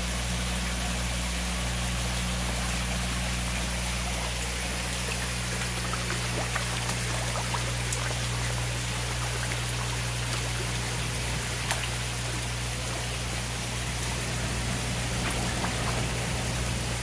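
Water pouring from a pipe outlet into a koi tank, a steady splashing rush, with a steady low hum underneath.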